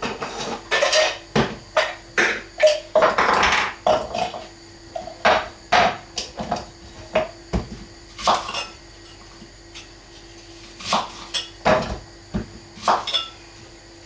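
Irregular knocks and clinks of kitchen utensils and a glass food-chopper bowl being handled on a wooden chopping board while peeled onions are put in, with a quieter pause about two-thirds of the way through.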